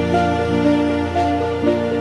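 Background music: sustained low chords under a slow melody of held notes, changing about twice a second.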